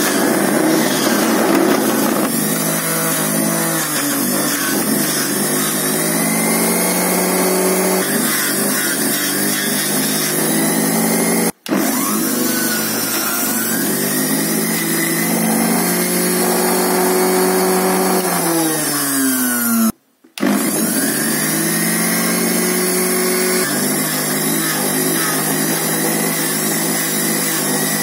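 Electric juicer running at full speed while spinach and bottle gourd are pushed through it, a loud steady motor whine whose pitch sags and recovers several times, falling noticeably shortly before the second break. The sound cuts out briefly twice.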